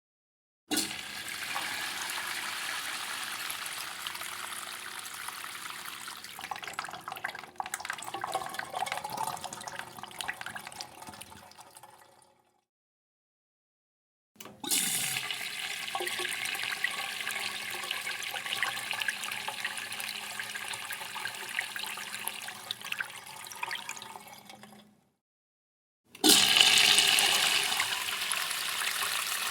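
Urinal flushed three times. Each flush starts with a sudden rush of water, settles into a steady gush and tapers away over about ten seconds; the third is still running at the end.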